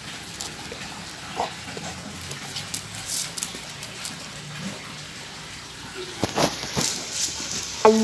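Rottweiler mouthing and chewing a raw carrot, with scattered wet chewing sounds and crunches and a cluster of sharper crunches near the end. Just before the end a short electronic sound effect of stepped tones cuts in.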